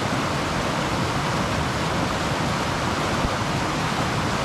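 Shallow rocky river rushing through rapids: a steady, unbroken wash of water noise.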